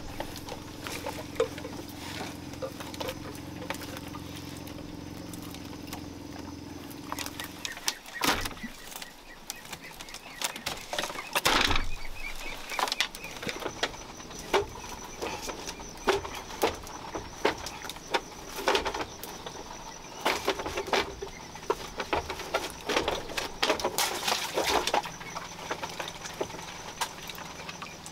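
Hands working fish free of a nylon gill net and handling them over a woven bamboo basket on a bamboo deck: irregular rustling, scraping and taps, with a few louder knocks about twelve and twenty-four seconds in. A steady low hum runs under the first eight seconds or so and stops abruptly.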